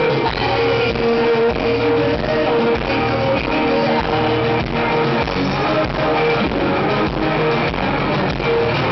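Live rock music: an amplified acoustic guitar strummed in a steady rhythm, with sustained melody notes over it.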